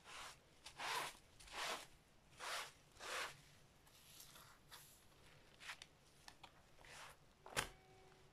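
Hands rubbing across wet net laid over silk fibres in a tray, working out air bubbles: soft swishing strokes about every three-quarters of a second that then grow fainter. A single sharp tap comes near the end.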